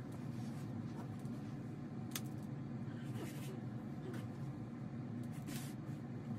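Cotton quilt blocks being handled and pressed onto a design wall: a few short soft rustles and brushes of fabric over a steady low room hum.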